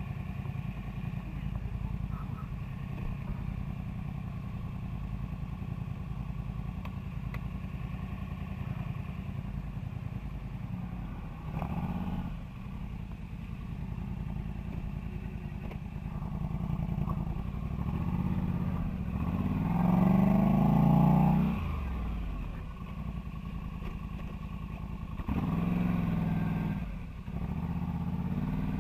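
Polaris ATV engine running at low revs. It is blipped briefly about twelve seconds in, revved up and back down more strongly around twenty seconds, and revved once more a few seconds later.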